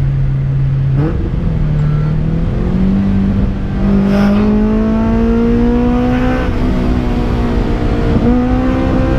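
Honda Civic's tuned 1.5-litre D15 four-cylinder heard from inside the cabin under hard acceleration. Its pitch steps up twice early on, then climbs slowly to around 7,000 rpm and is held there, with two brief dips in the second half.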